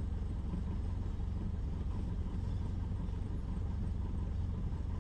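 Cessna 172's piston engine idling during a slow taxi, a steady low rumble heard from inside the cabin.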